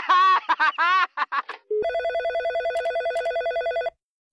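Desk telephone ringing: one ring of a fast, fluttering two-tone trill lasting about two seconds, starting about halfway through. It follows a voice speaking.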